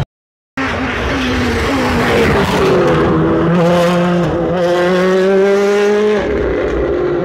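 World Rally Car's turbocharged four-cylinder engine at full throttle as the car approaches and passes. It begins after half a second of silence and rises steadily in pitch, with a brief dip at a gear change. About six seconds in the pitch drops sharply as the driver lifts off.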